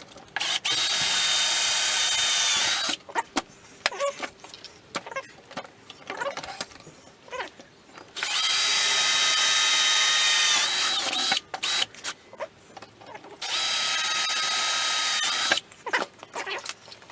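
Electric drill boring holes, run in three steady bursts of two to three seconds each, its whine dipping slightly in pitch just before each stop. Between bursts there are short clicks and knocks of handling.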